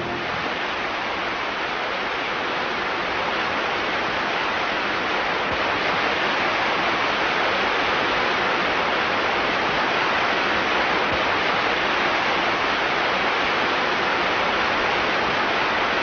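Steady rush of river water spilling over a small falls, an even hiss-like roar with no break.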